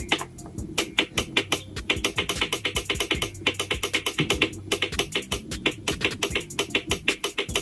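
Background music with a fast ticking beat.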